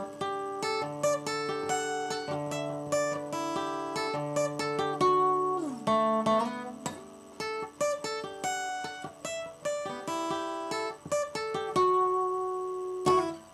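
Acoustic guitar played solo: a run of single picked notes and chords, with a note sliding down in pitch about six seconds in. It ends on a last loud strummed chord that stops sharply near the end.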